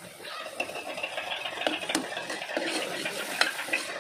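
Metal ladle stirring and scraping a thick spiced mince-and-dal mixture in an aluminium pressure cooker, with a few sharp clinks of the ladle against the pot.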